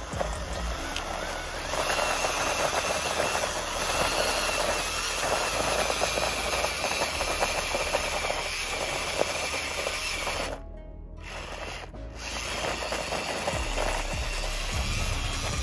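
Homemade RC model tractor's small electric drive motors whining under load as its tyres grind and scrape over loose gravel. There is a short dip about two-thirds of the way through.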